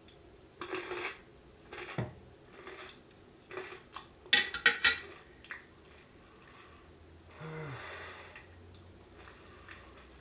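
Heavy breathing and snorting through the nose and mouth, broken by a quick clatter of chopsticks set down on a plate about four seconds in, the loudest sound.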